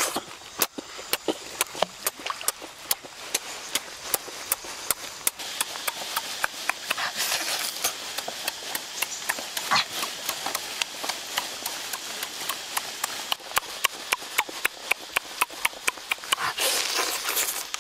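Close-up wet chewing and lip-smacking of someone eating cooked chicken: a steady run of sharp mouth clicks, a few a second.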